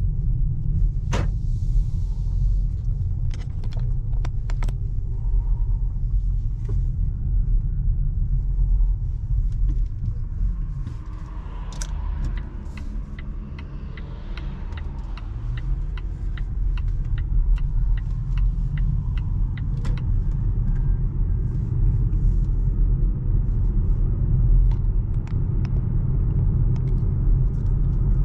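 Road and tyre rumble inside the cabin of a Volvo C40 Recharge, a fully electric car with no engine note, while driving. The rumble eases for a few seconds midway and then builds again. A run of regular ticks, about two a second, comes in around the middle, with a few scattered clicks.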